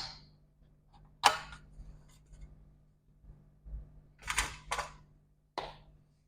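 Handling noise on a workbench: about five sharp clicks and knocks of tools and small laptop parts being picked up and set down, two of them close together about four seconds in, over a faint steady hum.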